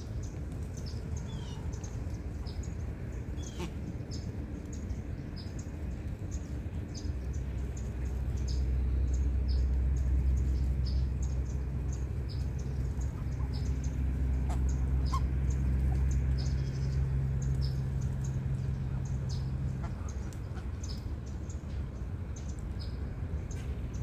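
Birds chirping in short, high, repeated notes over a low steady drone that swells in the middle and eases off after about twenty seconds.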